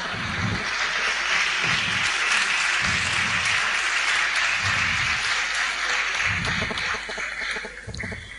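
Audience applauding after a poem's punchline line. The clapping is steady, then thins out and stops just before the end.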